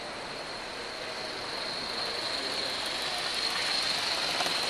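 Large-scale model steam locomotive and train of boxcars rolling along the track, a steady rolling hiss with a thin high whine that grows louder as the train draws close.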